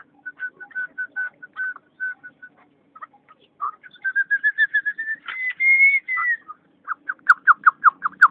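Chukar partridge (chakor) calling: a long run of quick clucking notes, about five a second, which climb in pitch into a drawn-out higher note a little past halfway, then a fresh run of louder, faster notes near the end.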